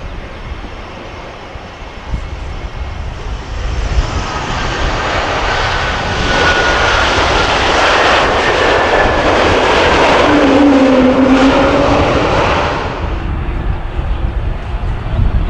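Swiss Airbus A220-300's Pratt & Whitney PW1500G geared turbofans passing close on its landing roll. The jet roar swells over several seconds, with whining engine tones sliding down in pitch, then falls away. About two seconds before the end it gives way to the duller, more distant engine rumble of a Ryanair Boeing 737 MAX on approach.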